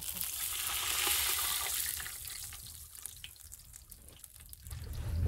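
Hot oil sizzling in a metal pot as a fried boolani is turned with tongs and lifted out. The sizzle is loudest for the first couple of seconds, then dies down, with a few light clicks. A low rumble rises near the end.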